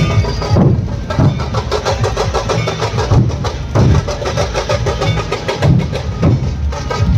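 A group of large dhol drums played with sticks, beating a steady loud rhythm: heavy low beats about every 0.6 s with quicker strokes in between.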